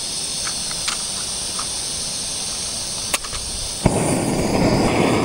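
Small gas canister stove being lit: the valve opens with a steady hiss of gas, a sharp igniter click comes about three seconds in, and a second, louder click just before four seconds lights the burner, which then burns with a steady rushing flame noise louder than the hiss.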